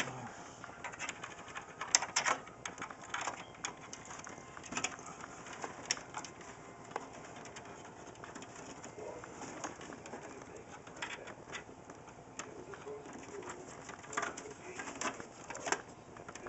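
Scattered clicks, taps and rustles of cables and plastic connectors being handled and routed through a PC case, with the sharpest knock about 2 seconds in.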